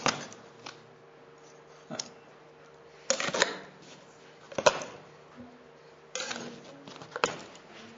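Metal tools being handled and set down: a string of sharp clinks and knocks, the loudest about three and a half and four and a half seconds in, over a faint steady hum.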